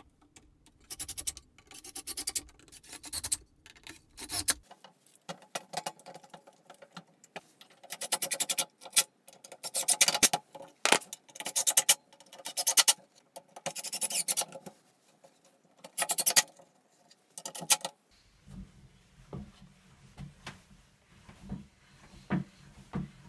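Cordless impact driver driving wood screws in a dozen or so short bursts of rapid hammering, stopping about three quarters of the way through; faint handling sounds follow.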